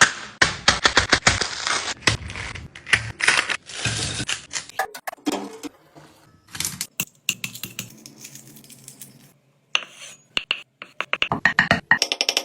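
Food-preparation handling sounds: a fast, irregular run of clicks, knocks and rustling, thinning out to a few scattered taps in the middle before picking up again near the end.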